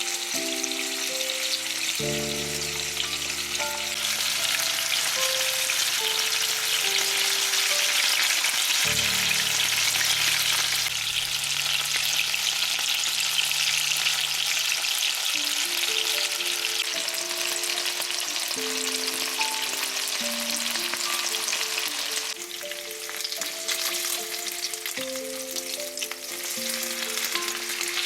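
Food sizzling in hot oil in a frying pan, loudest through the middle stretch, over background music with a simple melody.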